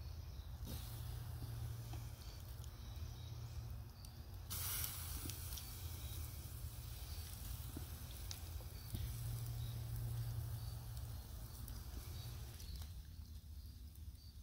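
Raw chicken wings sizzling with a steady hiss on a wire grill grate over a wood campfire, with faint crackles from the fire. The hiss swells louder and brighter about four and a half seconds in.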